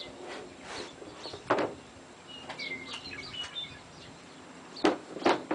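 A small bird chirps several times in quick high notes about halfway through. Three short sharp sounds stand out: one about one and a half seconds in and two close together near the end.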